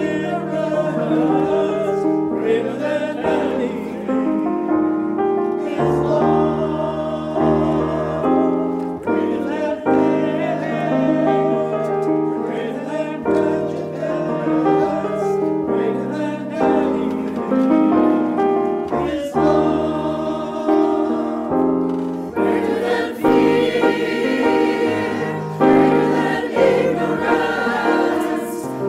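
Mixed choir of men and women singing in harmony, held chords moving from one to the next, the sound growing fuller and brighter in the last few seconds.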